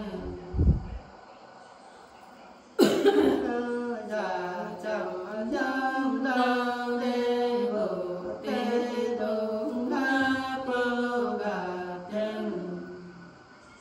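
Unaccompanied women's voices singing a Nùng folk song: a slow, chant-like melody of long, wavering held notes. The singing starts about three seconds in, after a short low thump, and fades near the end.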